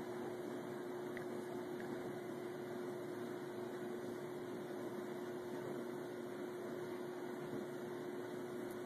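Steady background hum and hiss with one constant low tone, unchanging throughout.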